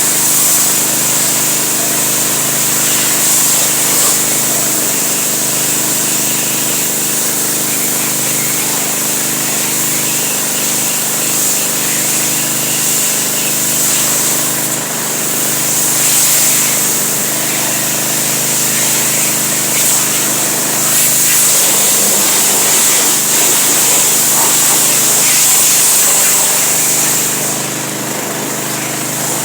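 A motor-driven machine running steadily, with a strong even hiss over a constant hum of tones. The level drops slightly near the end.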